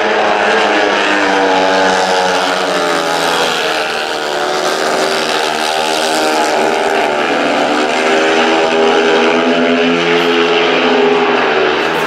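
Speedway motorcycles racing, their 500 cc single-cylinder methanol engines running hard, several engines heard at once with their pitch rising and falling as they go round the track.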